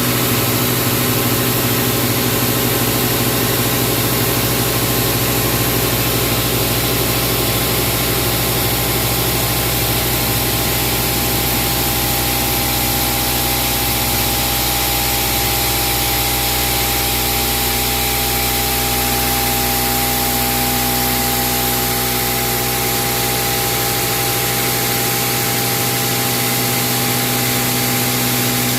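Milling machine cutting tool steel with an end mill, at a 12 mm axial and 3.5 mm radial depth of cut, 924 rpm spindle speed and 554 mm/min feed. It makes a steady, even machining noise: several constant hums and whines over a hiss.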